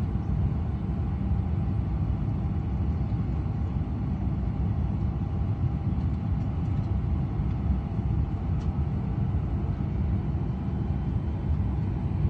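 Steady low drone of a parked airliner heard from inside its cabin, with a faint steady hum above it.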